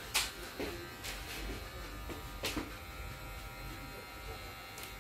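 A steady electric buzz, like a small electric motor, runs throughout, with a few sharp clicks, the loudest just after the start and another about two and a half seconds in.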